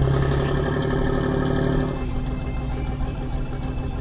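Boat engine running steadily, its tone strongest for the first two seconds and then settling lower.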